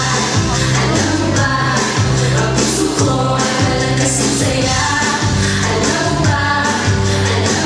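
Pop song with women singing into microphones over music with a steady, repeating bass line.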